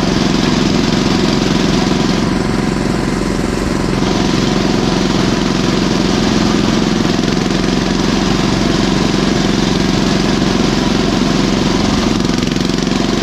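Mini tractor's Lombardini engine running steadily as the tractor drives along at about 12 km/h.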